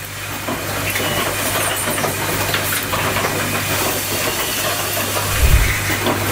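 Automated cable-holder terminal assembly machine running: a steady hum and hiss with many small rapid clicks of its mechanism, and a heavier thump about five and a half seconds in.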